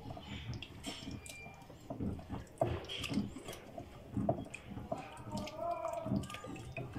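Wet, irregular squelching and dripping as a hand kneads a thick yogurt-and-spice marinade into a whole raw chicken.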